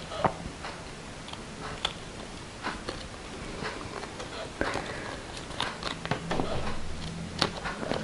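Scissors snipping through paper in short, irregular cuts, roughly one snip a second, while trimming the edge of a paper cutout.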